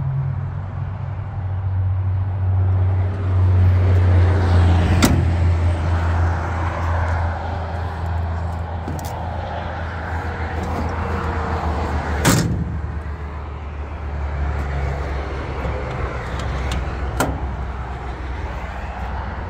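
Heavy-equipment engine running with a steady low hum, and three sharp knocks about five, twelve and seventeen seconds in, the one near twelve seconds the loudest.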